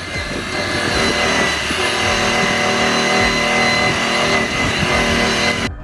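Electric rotary polisher with a foam pad running steadily against the lip of a forged aluminium wheel, a steady motor whine over a rushing hiss. It stops abruptly near the end.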